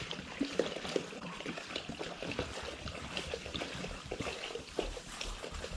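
Goats drinking from a water container, with small irregular slurps and splashes of water.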